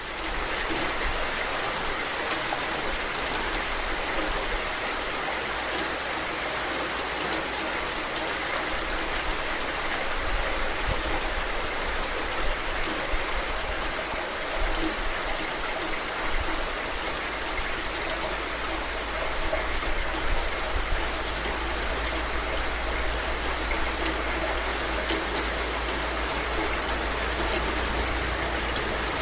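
Heavy rain pouring down steadily, an even hiss of countless drops.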